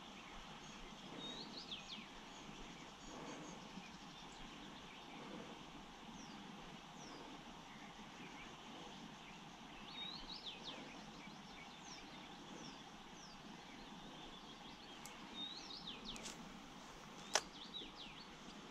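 Small birds singing short, sweeping song phrases every few seconds over a faint, steady outdoor hush. A single sharp click sounds about 17 seconds in.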